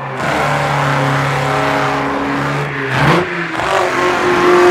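Racing car engine running fast and steady, with its pitch stepping higher about three seconds in.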